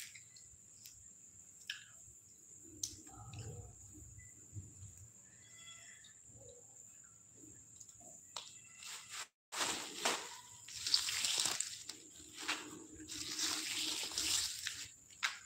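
Thin plastic bag rustling and crinkling as it is handled, loud in the last five or six seconds; before that, faint clicks and snaps from green chickpea pods being shelled by hand.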